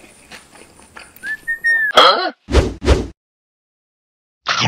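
Faint eating sounds, then cartoon-style sound effects: a short whistle that rises and holds, a loud swooping sound, and two heavy thumps. Another short hit comes near the end.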